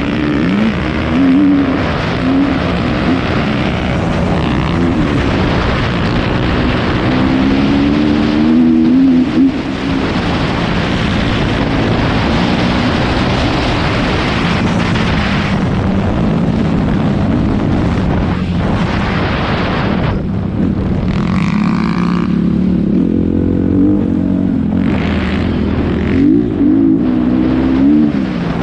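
Kawasaki KX250F dirt bike's single-cylinder four-stroke engine under throttle on a trail ride. The revs climb and drop back repeatedly as the rider accelerates.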